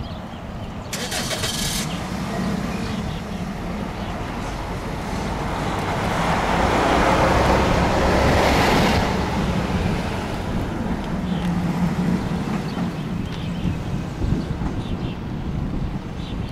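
Road traffic passing on the adjacent street: a steady low rumble, with one vehicle growing loud and fading away between about six and nine seconds in. A short hiss sounds about a second in.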